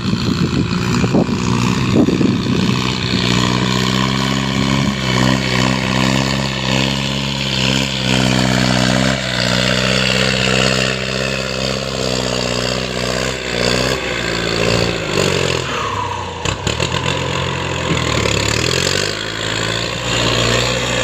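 An engine running, its pitch stepping up and down several times and dropping lower about three quarters of the way through, with a few sharp knocks around then.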